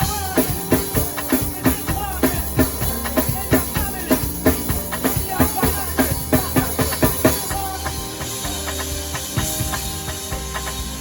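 A live band rehearsing: a drum kit plays a steady beat over bass and sustained keyboard-like tones. About three-quarters of the way through the drums drop out, leaving the held tones and bass.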